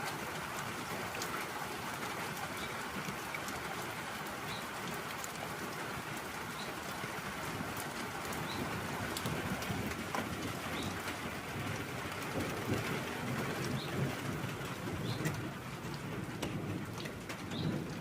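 Steady rain falling, with individual drips. A pigeon coos low in the second half, and a small bird gives short high chirps about every two seconds.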